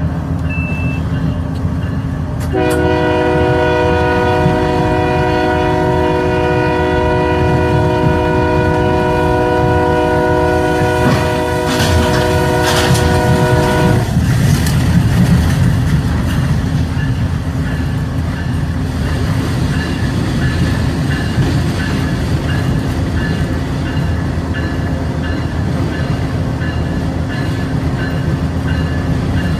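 A train's horn sounds one long blast, starting a couple of seconds in and held for about eleven seconds, over the steady low rumble of the moving train. After the horn stops, the train's rumble carries on.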